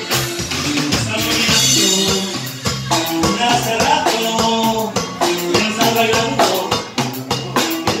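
Live band music: an alto saxophone and a Roland accordion play the melody over a drum kit keeping a steady dance beat.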